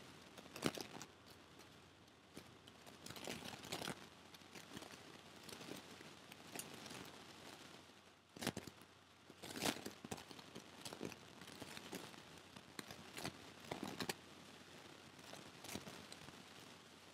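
Faint, irregular taps and scratches of a stylus writing on an interactive whiteboard screen, with a few sharper taps among them.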